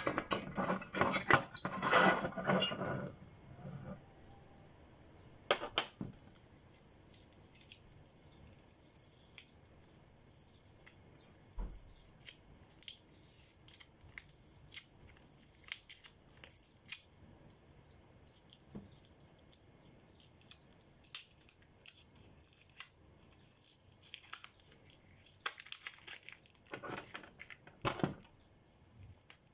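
Hand work on a drone battery pack: tearing and crinkling of tape or plastic wrap, with many sharp clicks and scrapes. The heaviest bursts come in the first few seconds and again near the end.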